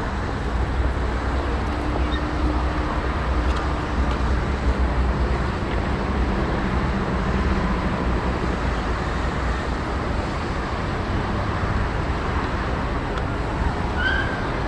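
Steady low engine rumble under a constant wash of outdoor noise, with a faint held tone about two seconds in.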